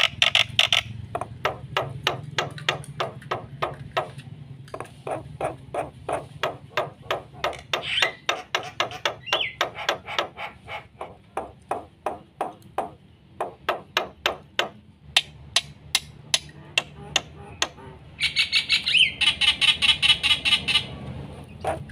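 Black-winged myna (jalak putih) singing hard: a long run of sharp clicking notes at about four or five a second, with a short break about four seconds in. Near the end comes a louder burst of high chattering notes lasting about three seconds.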